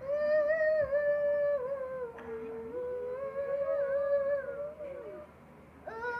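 A young girl humming a slow tune in long held notes, with a short break near the end before she picks it up again.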